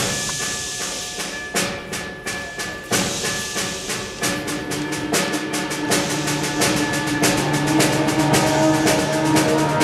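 High school symphonic band playing a piece that depicts a train chase: percussion strikes in a chugging rhythm that comes faster, with sustained wind and brass chords coming in about four seconds in and growing louder.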